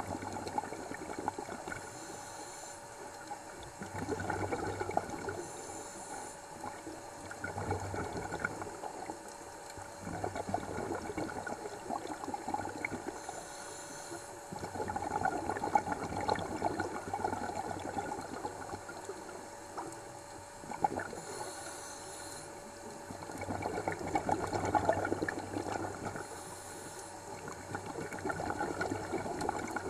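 Scuba diver breathing through a regulator underwater: a short hiss on each inhale, then a longer stretch of bubbling as the exhaled air escapes, repeating every few seconds.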